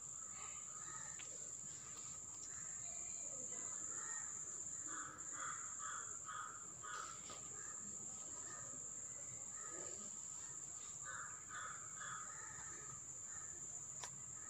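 Faint repeated bird calls in two runs, one from about three to seven seconds in and another around eleven to twelve seconds, over a steady high-pitched whine.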